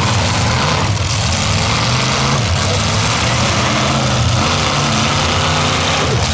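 Heavy vehicle engines running steadily, a loud low rumble with no revving.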